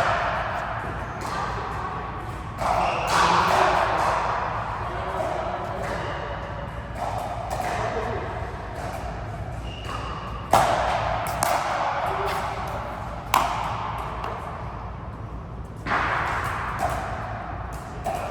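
Sharp hits of a ball game echoing in a large indoor hall, coming irregularly a second or a few seconds apart, with faint voices between them.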